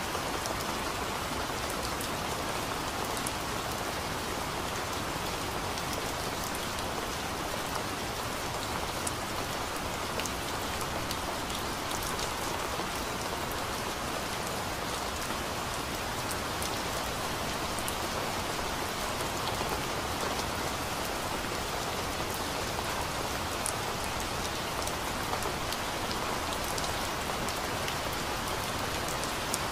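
Steady rain falling on forest trees: an even hiss with scattered sharp ticks of single drops.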